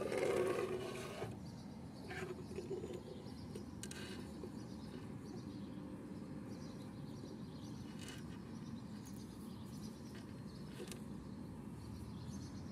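Handling noise from a mini doll and a small plastic toy tricycle being positioned on a wooden tabletop: a rubbing scrape in the first second, then a few faint light clicks over a steady low background hum.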